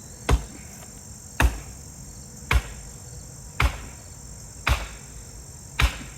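Hammer blows, six heavy strikes about once a second, driving something further in, over the steady chirring of crickets.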